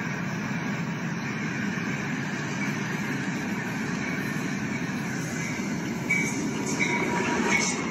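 Motorized LEGO train running on plastic track, a steady running noise that grows louder about six seconds in as it draws near, with a few short squeals and clicks near the end.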